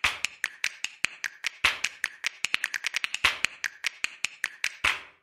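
Intro logo sound effect: a rapid, uneven run of sharp, ringing clicks, several a second, fading out near the end.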